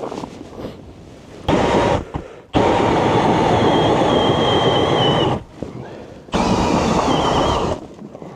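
A motor-driven tool running in three bursts, the longest about three seconds. Each burst is a loud rushing noise with a faint high whine, and each starts and stops sharply.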